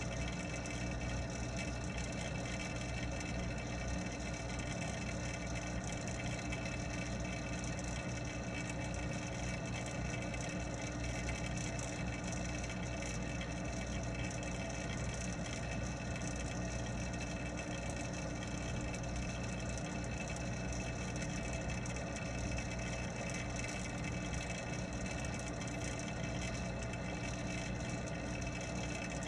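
Steady mechanical hum of a pond pump, heard underwater: a low rumble with several fixed tones above it, unchanging throughout.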